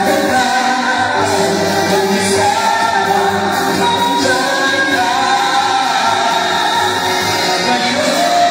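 Live singing into a microphone over backing music, the voice holding long notes that bend up and down.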